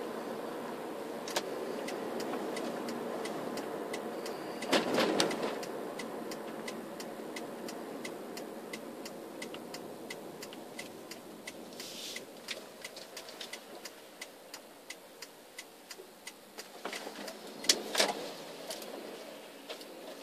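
Car running slowly with steady road and cabin noise heard from inside, a regular ticking about two a second, and two louder noisy bursts about five seconds in and near the end.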